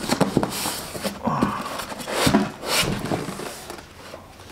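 Polystyrene foam packing tray being worked loose and lifted out of a cardboard box: a run of irregular scrapes and rustles with several sharper knocks, fading near the end.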